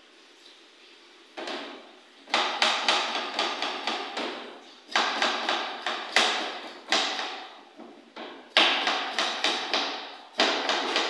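Knife chopping on a cutting board: runs of quick strikes, about five or six a second, broken by short pauses.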